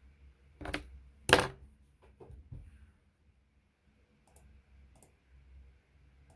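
Computer keyboard in use: two sharp knocks in the first second and a half, the second the loudest, a few softer taps after it, then single light key clicks about a second apart.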